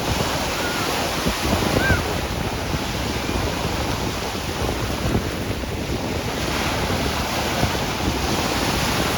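Ocean surf breaking and washing up the shore, with wind buffeting the microphone.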